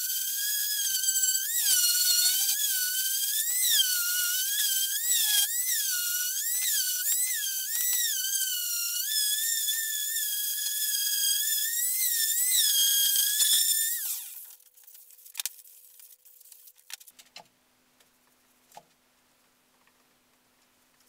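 Electric random-orbit sander running on MDF, a high whine that wavers up and down in pitch. It stops about 14 seconds in, leaving quiet with a few faint clicks.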